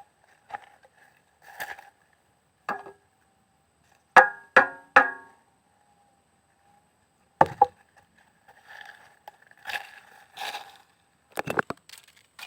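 A saw and wood being handled between cuts: scattered knocks and short scrapes, with three ringing metallic clanks in quick succession about four seconds in, like a handsaw blade being struck.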